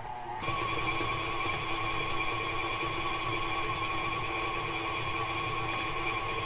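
KitchenAid stand mixer's motor running, its flat beater creaming butter and sugars; about half a second in it jumps to a higher speed and holds a steady whine.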